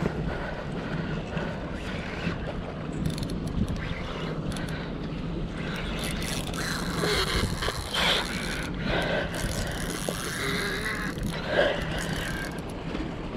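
Steady low drone of a ferry's engine, with wind buffeting the microphone and scattered knocks and scrapes.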